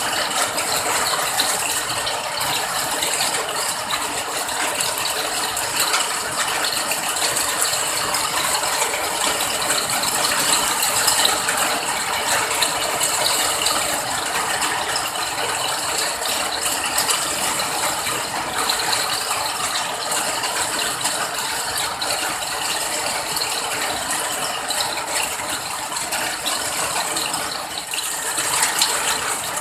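Steady rain: a dense, even crackle of many drops falling.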